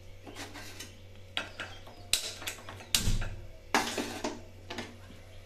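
Gas hob burner being switched on and lit: a string of sharp clicks and knocks from the knob and lighting. The loudest, with a short low thud, comes about three seconds in.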